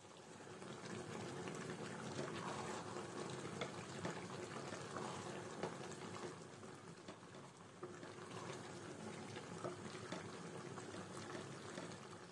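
Bottle gourd curry cooking in a pan on the stove: a faint, steady sizzle and bubbling with small scattered pops, as the curry fries down.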